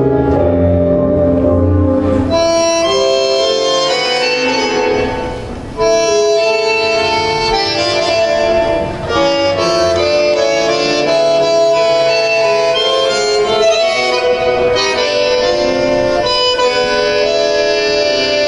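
Live tango music led by long held reed-like notes, like those of an accordion or bandoneon, over an accompaniment, pausing briefly about five and a half seconds in and again near nine seconds.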